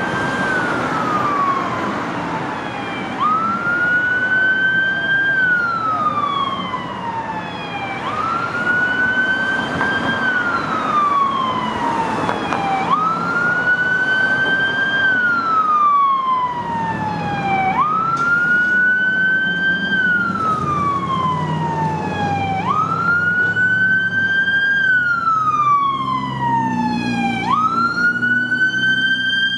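Emergency vehicle's electronic siren in wail mode. Each cycle jumps up, climbs, then glides slowly down, about every five seconds. It grows louder and fuller near the end as the vehicle approaches.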